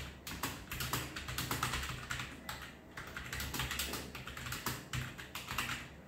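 Fast typing on a computer keyboard: a steady run of keystroke clicks that stops near the end.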